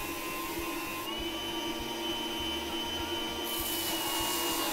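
Food-processor motor driving an abrasive grinding disc, running steadily while a steel blade is ground on it, with a hiss of steel on abrasive. The hiss thins about a second in and returns a couple of seconds later.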